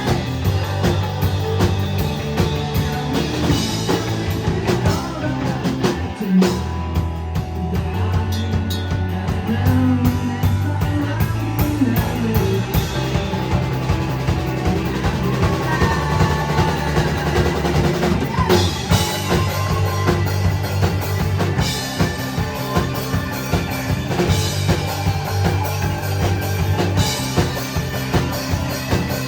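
Live rock band playing, with drum kit, bass and guitars.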